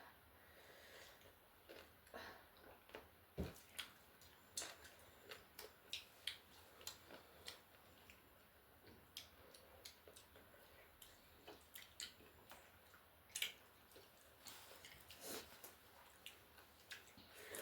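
Faint eating sounds: chewing with irregular soft clicks and smacks, a few sharper clicks standing out.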